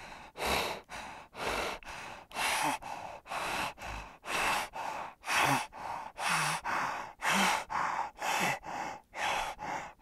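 Spotted hyena breathing in quick, hoarse puffs, about two a second, alternating stronger and weaker, with a brief low grunt in some of them.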